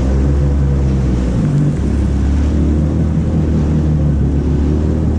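Jet ski engine running steadily at speed, with rushing water. The engine note shifts briefly about one and a half seconds in.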